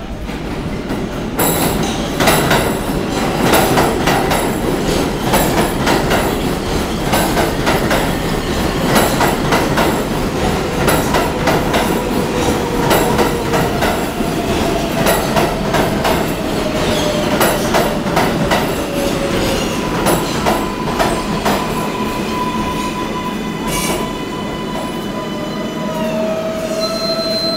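R142A subway train pulling into the station and braking to a stop. Its wheels clack over the rail joints and squeal, while the whine of its motors falls in pitch and, near the end, several tones glide down together as it comes to a halt.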